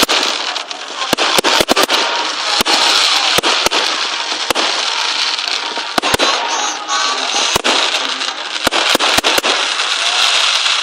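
Fireworks going off: a dense, continuous crackle with many sharp bangs at irregular intervals.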